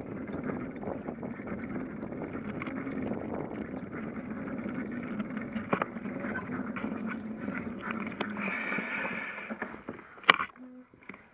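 Bicycle rolling along a concrete sidewalk: steady rolling and wind noise with scattered rattles and clicks. A little after ten seconds comes one sharp knock, and the rolling noise stops as the bike halts.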